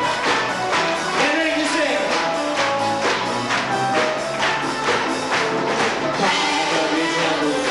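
A 1940s-era recorded song: singing over band accompaniment with a steady beat.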